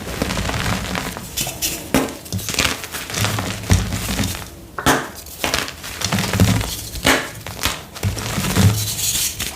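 Blocks of gym chalk crushed and crumbled by hand: a steady run of crunches and crackles, with soft low thuds as pieces and powder fall.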